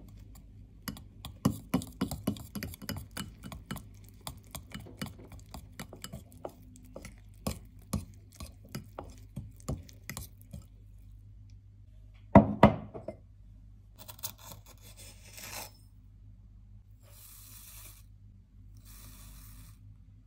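Metal spoon mixing batter in a bowl, with a quick run of clicks and taps against the bowl for the first ten seconds or so. Two loud knocks come about twelve and a half seconds in, followed by a few stretches of soft hissing rustle as sugar is poured in.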